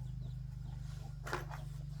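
Electric motor running with a steady low hum, and one short sharp noise a little past halfway.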